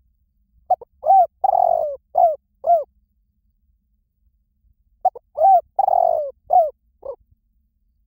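Spotted dove cooing in the 'liu tan' call style of Thai dove keepers: two phrases of five or six rising-and-falling coos, each phrase about two seconds long with a longer coo in the middle, a couple of seconds apart.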